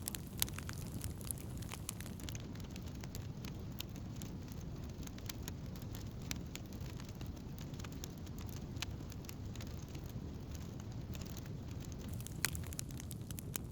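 Wood campfire burning: scattered sharp crackles and pops of burning wood over a steady low rumble of flame. The pops thin out in the middle and come more often near the end.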